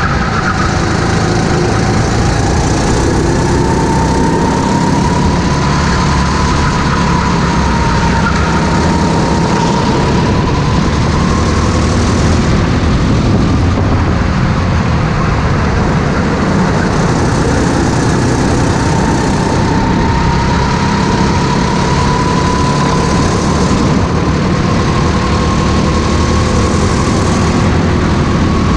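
Go-kart engine running hard throughout, its pitch rising and falling as the kart accelerates and slows through the turns, with wind and tyre noise over the kart-mounted camera.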